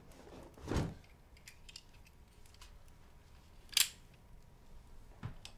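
Revolver being handled: scattered small metallic clicks, with a soft knock just under a second in and a sharper click near four seconds in.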